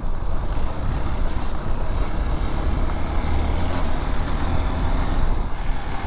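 Hero XPulse dual-sport motorcycle riding on a rough gravel road: engine running steadily under a heavy rush of wind noise on the microphone.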